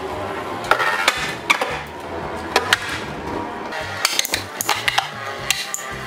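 Two metal Infinity Nado 3 battle tops spinning in a plastic stadium, clashing with irregular sharp clacks as they collide and scrape. Background music with a stepped bass line plays underneath.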